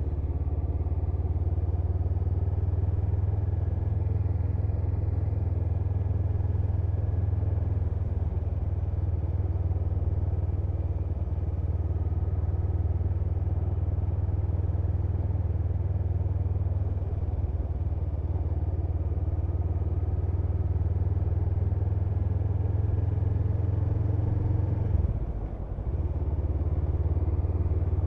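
Honda CMX500 Rebel's parallel-twin engine running steadily, with a short rise and then a brief dip in level a few seconds before the end.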